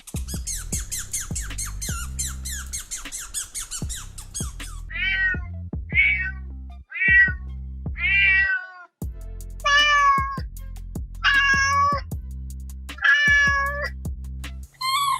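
An animal calling over background music: a fast run of high, squeaky chirps for about five seconds, then a series of short, pitched, meow-like cries, the later ones longer.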